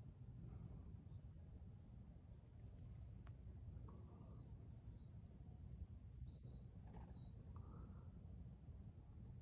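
Faint outdoor ambience: a steady high-pitched insect trill, with a bird giving short falling chirps about once a second from about two seconds in, over a low rumble.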